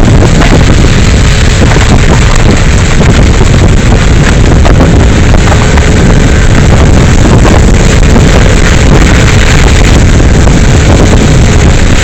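A vehicle driving on a rough dirt road, heard from on board: a loud, steady rumble and rush of engine, tyres and wind buffeting the microphone.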